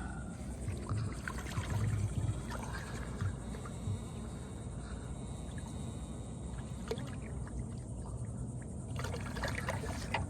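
Water trickling and lapping against a small boat's hull, with a steady low rumble and a few light knocks near the end.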